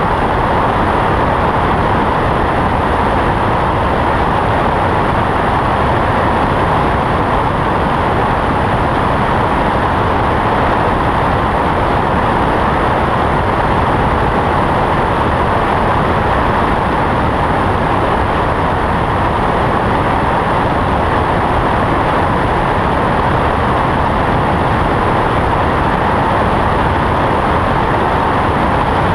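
Cessna 172 in steady cruising flight: an even, unchanging rush of wind and engine-and-propeller noise, heard from outside the cabin, with no change in power.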